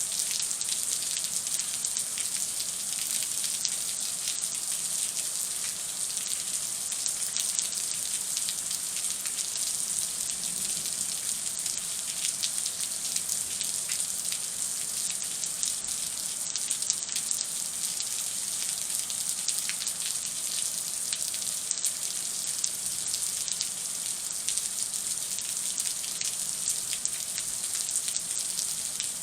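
Heavy rain from a thunderstorm falling steadily, a dense hiss of countless drops hitting the ground.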